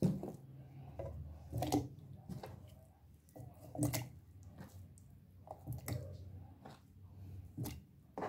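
Pieces of guava dropped by hand into a plastic blender jar, landing with soft, irregular knocks about once a second.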